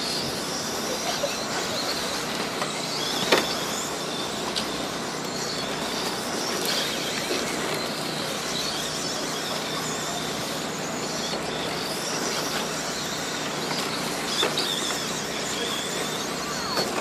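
Radio-controlled late model race cars running laps on a dirt oval, their motors making a high-pitched whine that rises and falls as they accelerate and slow through the turns, over a steady hiss of tyres on dirt. A single sharp knock about three seconds in.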